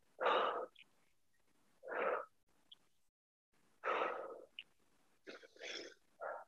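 A woman's heavy breathing: short, forceful exhales about every two seconds, the breaths of exertion during bent-over dumbbell rows.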